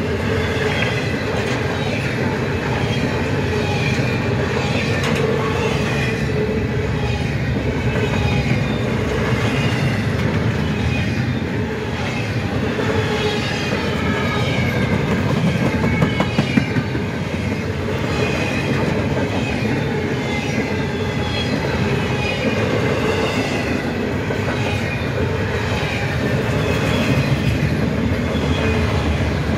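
Freight train cars rolling steadily past, intermodal well cars and then autorack car carriers: a continuous rumble and clatter of wheels on the rails, with wavering high-pitched wheel squeal over it.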